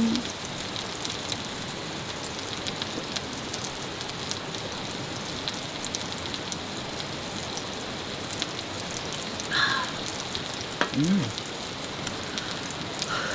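Steady rain falling, an even hiss dotted with the ticks of single drops. About two-thirds of the way in come two short louder sounds.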